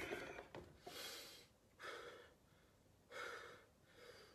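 Faint heavy breathing of a weightlifter recovering between lifts: four breaths, about one a second.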